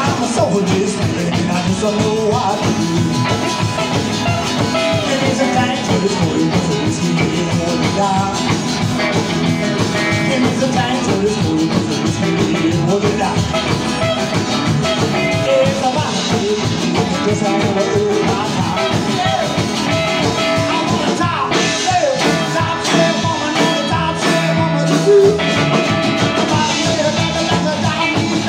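Live rock and country-blues band playing an instrumental passage: electric guitar lines with bent notes over strummed acoustic guitar, upright bass and drums. No singing is heard.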